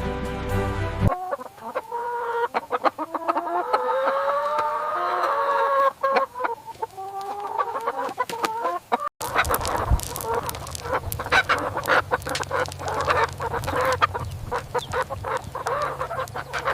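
A flock of chickens clucking and squawking in short, busy calls. About halfway through the calling grows denser over a low steady hum. Music ends about a second in.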